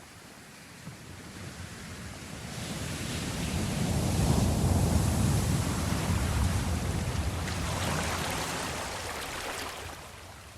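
Ocean surf: a wave's rush of water builds over a few seconds, is loudest midway with a deep rumble under the hiss, surges once more, and fades near the end.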